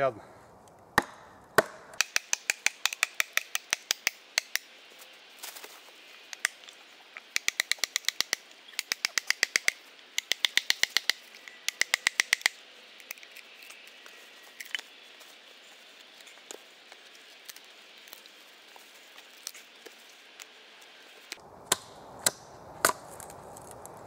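A wooden mallet beating on the back of a small Gränsfors axe driven into a thick birch log, in two runs of quick, sharp, ringing blows. Near the end come a few sharp cracks as the log gives and splits apart.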